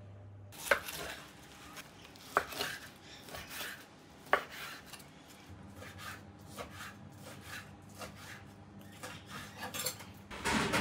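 Knife slicing raw meat on a wooden cutting board, starting about half a second in: the blade knocks on the board, three knocks louder than the rest about two seconds apart, with lighter taps and scraping in between.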